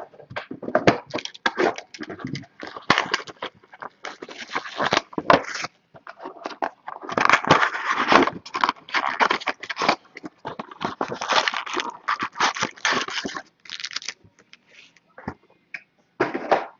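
Cardboard trading-card box being opened by hand: a quick run of crackles and scrapes as the box and its wrapping are torn open and the foil packs are pulled out. The handling thins out near the end.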